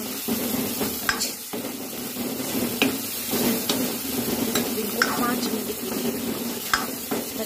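Steel ladle stirring and scraping green peas through sizzling masala in a metal kadhai, the oil frying steadily, with a sharp click of the ladle against the pan every second or two.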